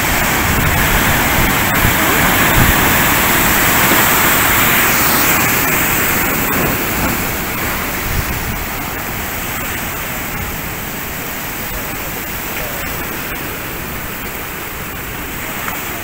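Atlantic Ocean waves breaking and foaming over black volcanic rocks: a steady rush of surf, louder over the first few seconds and then gradually easing.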